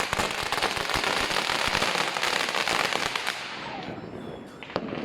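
Firecrackers going off in a rapid, dense crackle of many small pops that thins out after about three seconds, with one more sharp pop near the end.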